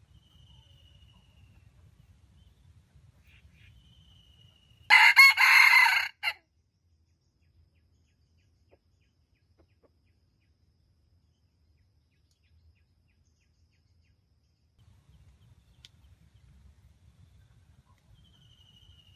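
A red junglefowl rooster crows once, a loud crow lasting a little over a second about five seconds in.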